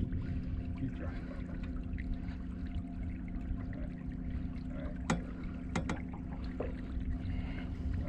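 A boat motor running steadily with a constant hum, over a low rumble of wind and water. A few sharp clicks come about five to six seconds in.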